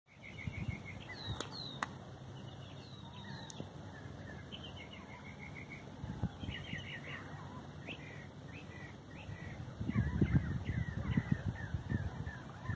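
Several birds calling and chirping: a busy mix of short repeated chirps and quick gliding notes, some harsher calls among them. An uneven low rumble on the microphone runs underneath and grows heavier about ten seconds in.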